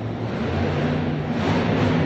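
Boneshaker monster truck's engine running hard, a steady pitched engine note with its pitch edging up toward the end, as the truck gathers to climb the crushed cars.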